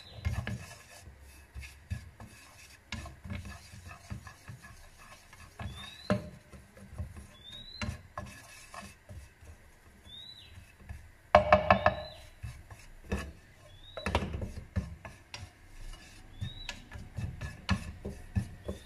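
A plastic spatula scraping and knocking around a non-stick frying pan in irregular strokes, stirring crumbly butter and flour as a roux for white sauce is cooked. The loudest scrape comes about eleven seconds in.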